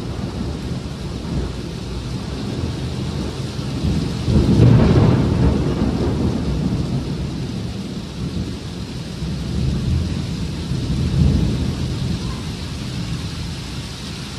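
Heavy rain pouring down steadily, with a peal of thunder that swells into a loud rumble about four seconds in and slowly fades, and a second, smaller rumble later on.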